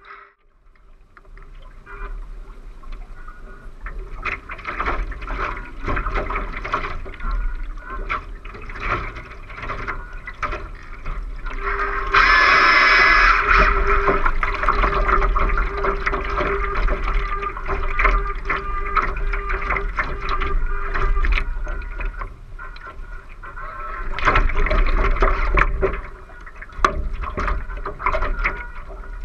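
Water rushing and splashing along the hull of a 2-metre radio-control ACC One Design yacht under sail, heard muffled through a GoPro's waterproof housing on the deck, with many small ticks of spray and drops hitting the case and a steady low tone underneath. It fades in over the first second and is loudest about twelve seconds in.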